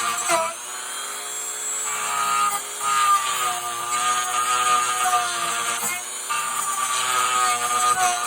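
High-speed electric rotary tool running while carving a wooden pinewood derby car body, its whine wavering in pitch as the bit bites into the wood.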